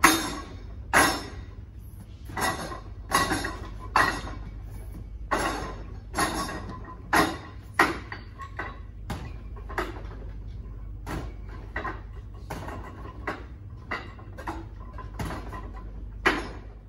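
Wing Chun wooden dummy being worked through its form with forearms and hands: a string of sharp wooden knocks, irregularly spaced at about one to two a second, some much louder than others.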